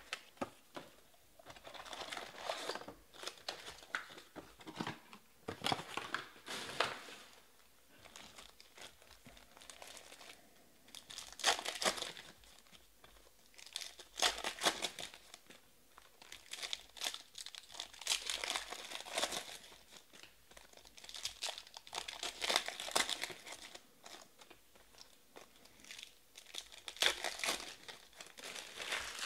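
Foil trading-card pack wrappers being torn open and crinkled by hand, in irregular bursts of rustling about every second or two.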